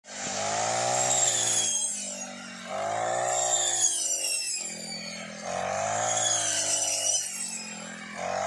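Brush cutter engine revving up and easing off in repeated surges, about every two and a half to three seconds, as its blade sweeps through rice stalks; three full surges with a fourth starting near the end.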